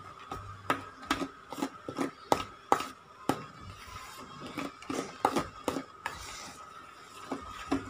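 Spatula stirring whipped cream and crushed Oreo cookies in a stainless steel bowl, knocking and scraping against the metal in sharp, irregular clicks over a faint steady whine.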